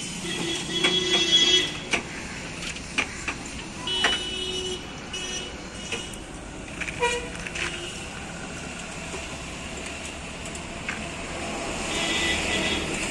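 Road traffic going by, with vehicle horns tooting briefly a few times and scattered sharp clicks and knocks. A louder stretch of traffic noise swells near the end.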